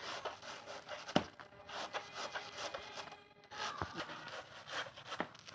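Banana being grated on a hand grater: repeated rasping strokes, about two a second, with a short pause in the middle and a few sharp knocks.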